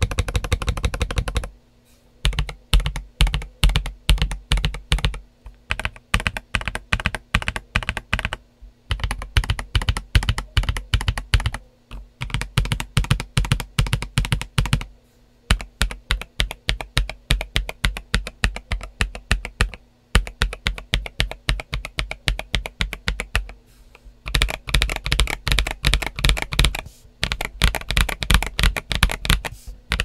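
Feker IK65 65% mechanical keyboard, stock, with White Jade switches and Cherry-profile PBT keycaps, being typed on. A dense flurry of keystrokes opens it, then fast bursts of typing broken by short pauses.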